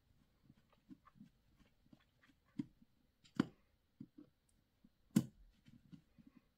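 Faint small clicks and soft handling knocks of a screwdriver bit turning a brass jet into a Vespa SI carburetor body, with two sharper clicks about three and a half and five seconds in.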